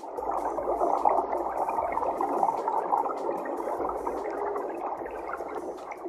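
Underwater recording of a humpback whale: a steady, dense mid-pitched wash of whale sound and water that begins abruptly and eases off toward the end.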